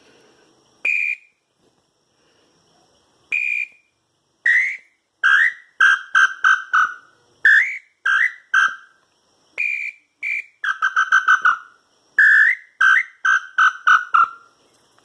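Handmade wooden hunting bird-call whistle (piu) blown in short whistled notes, each sliding up and then dropping to a held tone. A few spaced single notes come first, then a faster run with a quick burst of notes in the middle.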